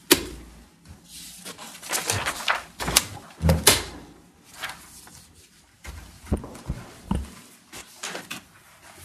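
Papers being shuffled and set down on a wooden lectern close to its microphone: rustling with scattered sharp knocks and thuds, a sharp knock at the very start and the loudest thuds about three and a half seconds in.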